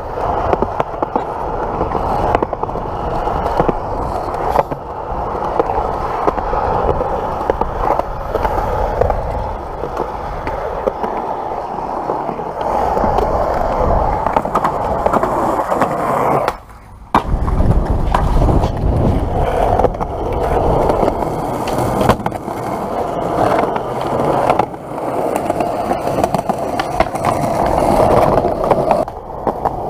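Skateboard wheels rolling on smooth concrete with a steady gritty rush, broken by frequent sharp clacks of the board hitting the ground. The sound drops out briefly about seventeen seconds in.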